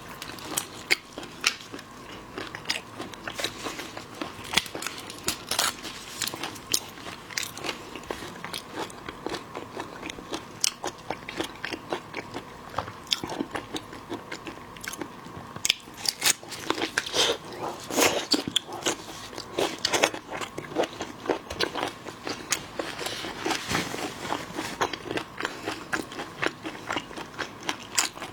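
Close-miked eating of seafood: biting, crunching and chewing, with many irregular sharp crackles and clicks. The crunching is busiest a little past the middle.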